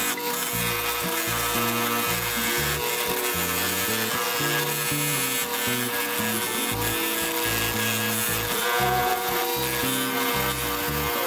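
Power-driven wire wheel scrubbing rust off a pair of steel pliers, a steady scraping hiss with a constant motor hum, under background music with a moving bass line.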